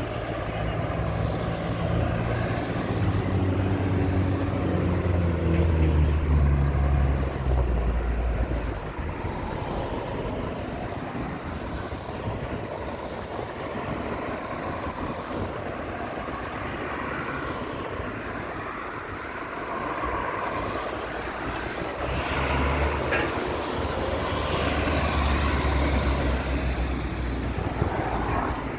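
Road traffic going past, a steady noise of cars, with the deep rumble of heavy vehicles' engines swelling over the first several seconds and again later on.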